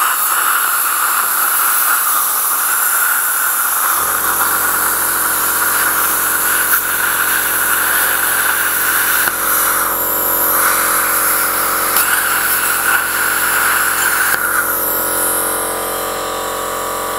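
A Cut 50 ST plasma cutter cuts a circle through 3 mm steel with a loud, steady hiss of arc and air jet. About four seconds in, a low steady hum joins it and runs on. The hiss eases slightly near the end.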